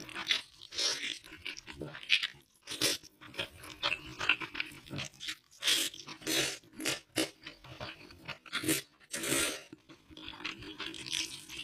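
Close-miked eating sounds: slurping sauced noodles off a spoon and chewing with wet mouth smacks and crunches, in quick irregular bursts.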